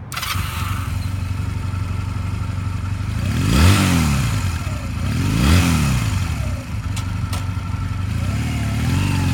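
A 2007 Honda Rebel 250's small air-cooled parallel-twin engine starts up, idles, and is revved twice, a few seconds in. Two light clicks follow about seven seconds in.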